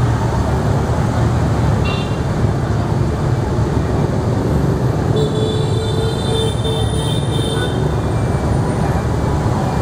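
Steady rumble of motorbike street traffic. A brief high-pitched tone sounds about two seconds in, and a longer one runs from about five seconds to nearly eight.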